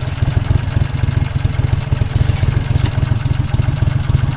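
Boat's outboard motor running steadily at a low, even speed, its loud rapid low-pitched pulsing unchanged throughout.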